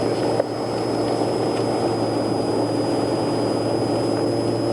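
Steady engine and road noise inside a moving van at highway speed, with a faint constant high whine over it.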